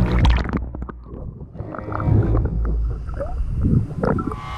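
Action camera going under the sea surface: a splash, then muffled underwater gurgling and bubbling over a low rumble.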